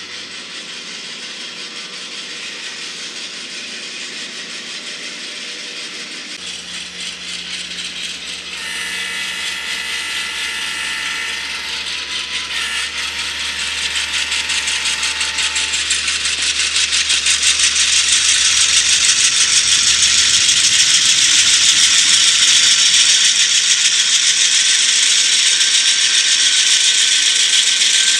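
N-scale model diesel locomotives running along the layout's track, with the fast mechanical rattle of their motors, gears and wheels growing louder as they come closer. A chord of steady tones sounds for about three seconds near the middle, with a short one after it.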